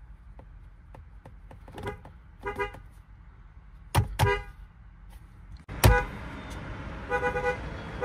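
Lexus car horn sounded by pressing the steering-wheel pad in short taps: a string of brief toots, with a quick run of rapid toots about seven seconds in.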